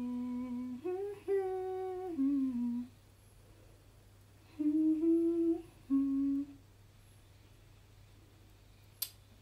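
A woman humming a few held notes in two short phrases. The second phrase starts about four and a half seconds in. A single sharp click comes near the end.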